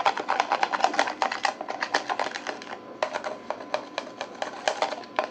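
Rapid, irregular clicking and tapping from stirring a shampoo, conditioner, oil and boric-acid-water slime softener in a container, with a short pause about three seconds in.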